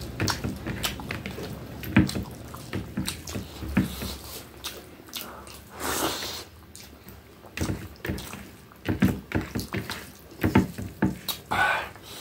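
Close-up wet chewing and lip-smacking of a person eating rice with curry by hand, with squelchy clicks as the fingers mix and squeeze the rice on the plate, coming in irregular bursts.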